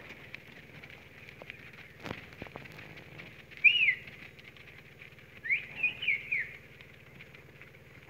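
Loud, short whistled notes that rise and fall in pitch: a single note about three and a half seconds in, then a quick run of three or four near six seconds, over a faint steady hiss and a few soft knocks.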